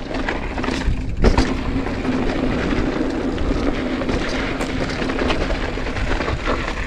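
Mountain bike rolling along a dirt trail: a steady rush of tyre noise and wind on the microphone, with frequent rattles and knocks, the loudest just after the first second.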